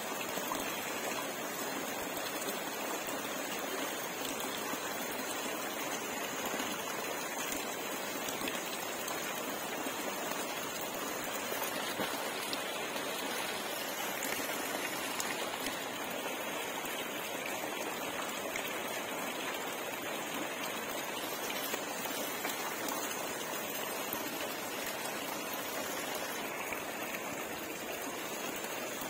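Steady splashing of water falling into a fish pond: a jet of water pouring in at the edge, with drops pattering across the surface.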